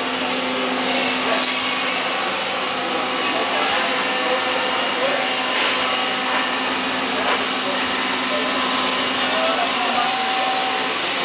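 Machine-shop machinery running steadily: an even, loud hiss with a thin, high, unchanging whine and a lower steady hum.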